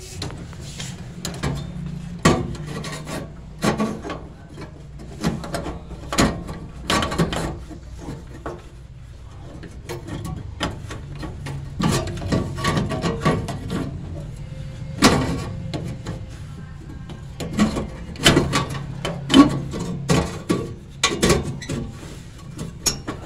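Irregular clicks, knocks and rubbing of metal parts and wires being handled as a replacement igniter is pushed into the burner tube of a Speed Queen gas dryer, over a steady low hum.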